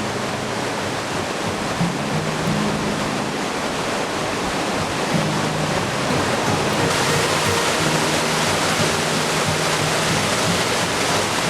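Steady rushing water with background music playing underneath in long, held low notes. About seven seconds in, the water hiss turns brighter.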